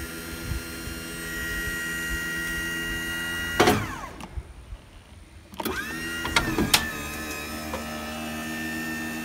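Ricon wheelchair lift's electric motor running with a steady whine as the platform folds up. It stops with a clunk about three and a half seconds in, then starts again about two seconds later with a couple of clicks.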